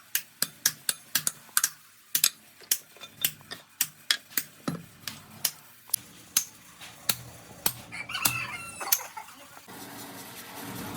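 Quick, sharp hammer taps on metal, about three a second. They stop about eight seconds in as a rooster crows, and a steady hiss follows near the end.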